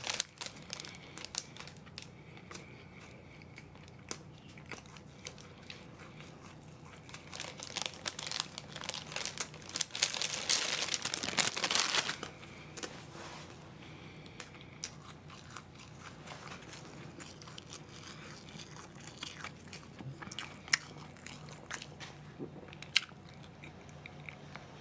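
A person eating close to the microphone, biting and chewing pastry, bread and grilled pork ribs with many small crunches and mouth clicks. About seven to twelve seconds in there is a louder, denser stretch of crunching, and after that the chewing is quieter and sparser.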